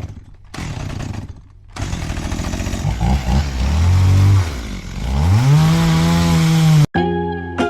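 Chainsaw sound effect: two short bursts, then a continuous run that revs up in pitch to a steady high whine and cuts off suddenly near the end, where music begins.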